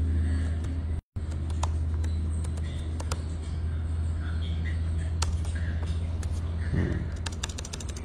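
A steady low hum with scattered clicks, and a quick run of keyboard-like typing clicks near the end. The sound drops out completely for an instant about a second in.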